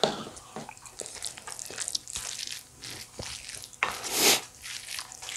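Bibimbap being stirred in a bowl: wet rice and sauce squishing, with light utensil clicks against the bowl. There is a louder swish about four seconds in.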